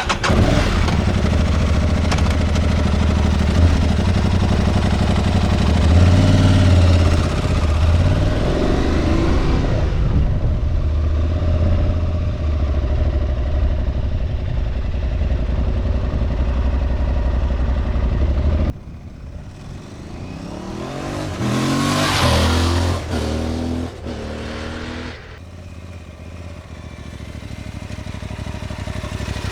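Aprilia Tuareg 660 parallel-twin engine running and being revved. Its pitch climbs twice, about a third of the way in and again about three quarters through. It drops away sharply partway through and builds again near the end.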